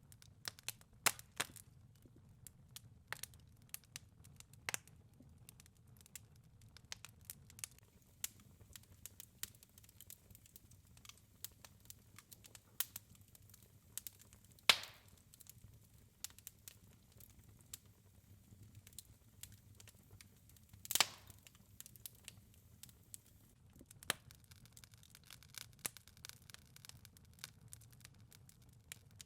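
Wood fire crackling in a fireplace: a steady scatter of small irregular snaps, with two louder pops about a quarter-minute in and again some six seconds later.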